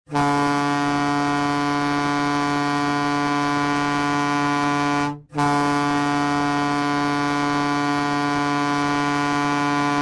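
Hockey goal horn blowing two long, steady blasts of about five seconds each, with a brief break between them.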